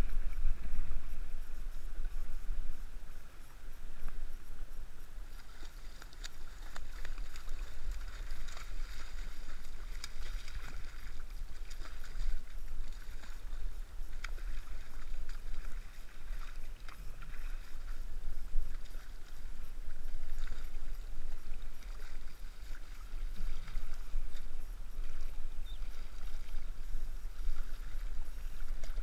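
Surf water sloshing and splashing around a wading angler as a hooked striped bass thrashes at the surface, over a steady low rumble.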